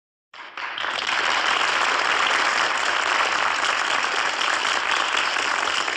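Studio audience applause: dense, steady clapping that starts a moment in and reaches full strength within the first second.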